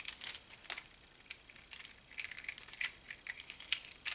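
Plastic clicks and clacks of a 3x3x1 floppy cube puzzle being turned in the hands: irregular, sharp, light clicks as the layers are flipped.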